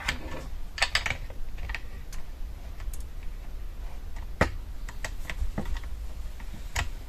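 Irregular small plastic clicks and taps as a USB cable plug is worked into the emergency charging port on the underside of a TTLock smart lock and the lock's casing is handled. A steady low hum runs underneath.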